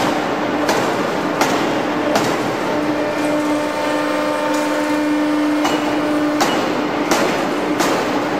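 Large double-column forging hammer striking a red-hot steel billet with a sharp blow about every two-thirds of a second. Midway the blows pause for about three seconds, leaving a steady machine hum, then they start again.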